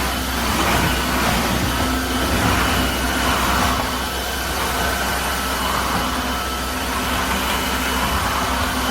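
Tineco Floor ONE S5 cordless wet-dry vacuum running steadily: a constant motor whine over a rush of suction.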